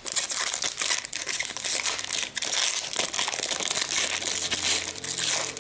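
Foil wrapper of a 2009-10 Fleer Ultra hockey card pack being pulled open and handled, giving a dense crinkling crackle that eases off near the end.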